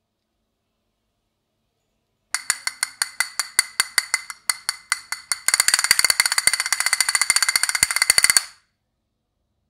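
Castanets played by hand, starting about two seconds in: separate sharp clicks at about six a second, then a fast continuous roll for about three seconds that stops suddenly.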